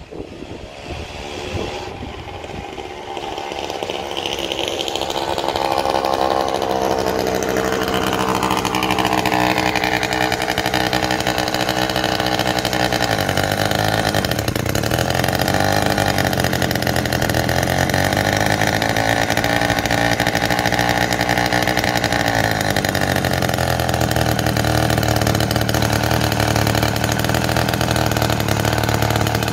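Small 49cc gasoline bicycle engine running. It grows louder over the first few seconds, its speed rises and falls a few times, then it settles into a steady idle for the last several seconds.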